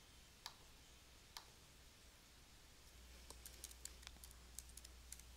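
Faint computer clicks: two single clicks, then a quick run of keyboard key presses starting about three seconds in, typing a file name.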